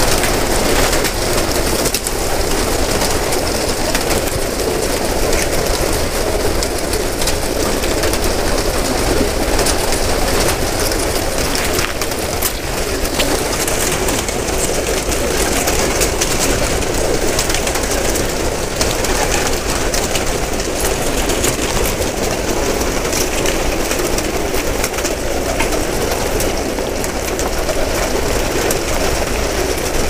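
A large flock of rock pigeons cooing together in a loft, a dense, steady chorus with no pauses. Scattered short flaps and clatters come from birds taking off and landing.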